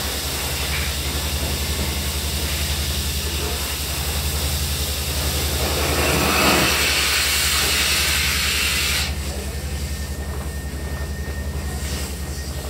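Industrial vacuum hose sucking up spent blast sand, a rushing hiss of air and grit over the steady, fast-pulsing drone of the vacuum machine. The hiss swells and then drops off sharply about nine seconds in, while the drone keeps running.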